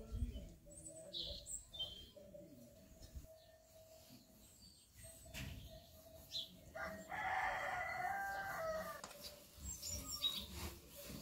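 A rooster crows once, a long call lasting about two seconds, past the middle, with small birds chirping briefly near the start.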